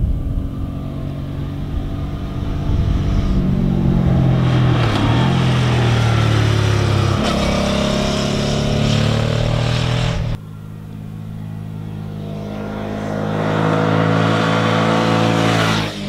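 Suzuki V-Strom 650 XT's 645 cc V-twin engine as the motorcycle rides past, its pitch rising as it accelerates. The sound cuts off abruptly about ten seconds in to a second pass, where the engine grows steadily louder and then falls away at the end.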